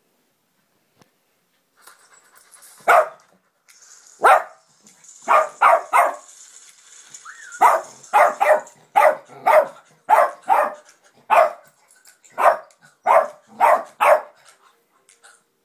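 Small white dog barking repeatedly in short, sharp barks, some single and some in quick runs of two or three, worked up by an advert on a laptop screen. The barking starts about three seconds in.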